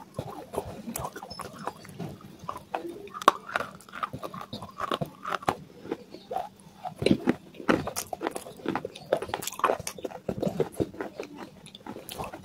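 Close-miked chewing of pieces of clay: irregular crisp crunches and wet mouth clicks as the clay is bitten and ground between the teeth.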